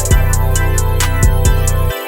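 Instrumental music with a steady beat and a strong bass line; the bass drops out just before the end.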